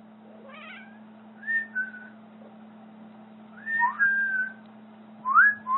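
A kitten meowing several times in short, high calls, the loudest near the end, over a faint steady hum.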